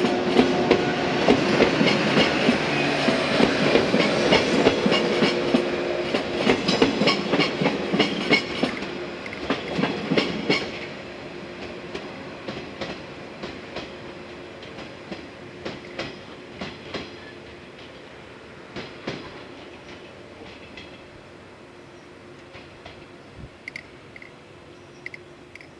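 Yellow electric commuter train passing close by, its wheels clacking over rail joints above a steady running hum. After about ten seconds it runs off into the distance, the clacks growing fainter and sparser.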